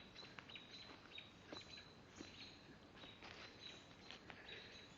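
Faint birdsong: wild birds chirping and singing, with short high thin notes repeating every second or so over quiet background hiss.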